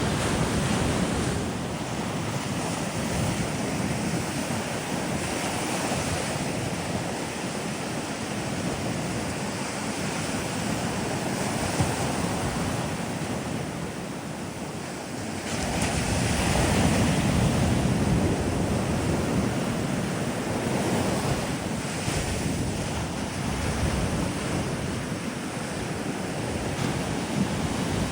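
Sea waves breaking and washing up on a sandy beach, a continuous surf wash that swells and ebbs. A bigger wave surges in a little past halfway, the loudest moment.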